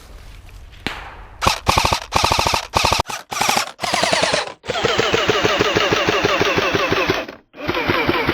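Airsoft rifle firing on full auto: about a second in, a string of short bursts in quick succession, then one long burst of nearly three seconds and another short burst near the end.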